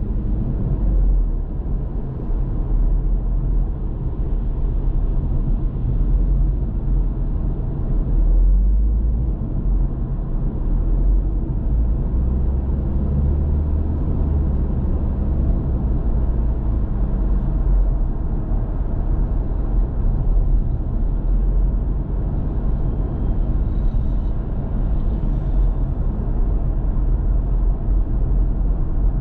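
Steady low rumble of a car being driven, the engine and tyre noise of the filming car.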